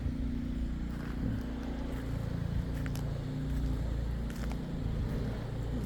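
A motor vehicle's engine running steadily, a low hum with a few faint ticks over it.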